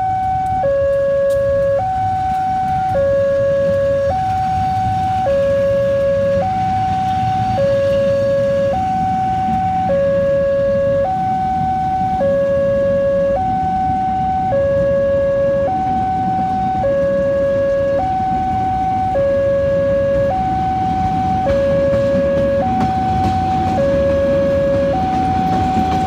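Electronic railway warning alarm sounding continuously, switching between a high and a low tone a little more than once a second, over a steady low rumble.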